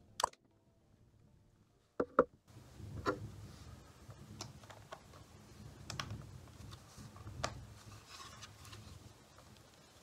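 Plastic Lego bricks clicking as they are handled and pressed together. There is a sharp pair of clicks about two seconds in, then lighter clicks scattered through the rest.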